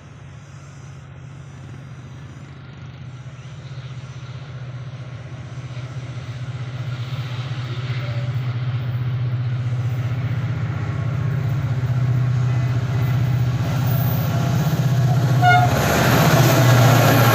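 Diesel-hauled train approaching, its locomotive engine hum growing steadily louder, with a short horn blast near the end as it arrives.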